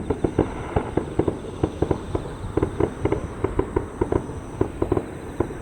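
Fireworks display: a rapid, irregular string of sharp bangs and cracks, several a second, from a fast barrage of bursting shells.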